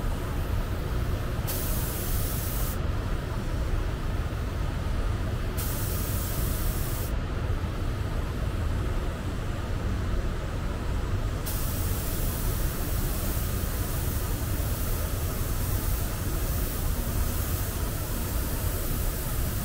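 Compressed-air gun hissing in bursts: short passes about two and six seconds in, then held on from about twelve seconds, over a steady low rumble.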